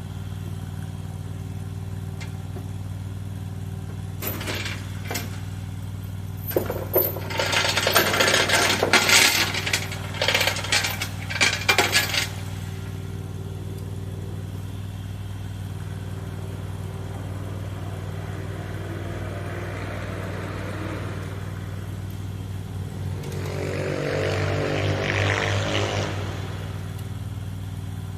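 Mini skid steer's engine idling steadily. From about four to twelve seconds in there are loud bursts of metallic clanking and scraping, and a shorter louder mechanical stretch follows near the end.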